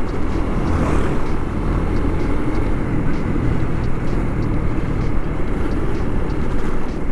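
Motorcycle engine running at a steady pace, its drone mixed with wind rush on the microphone as it rides over broken, potholed asphalt.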